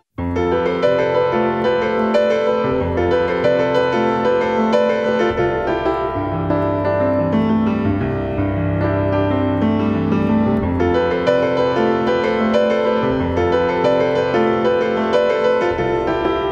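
Instrumental music led by piano, with sustained chords and a slow-moving melody, starting right after a brief gap.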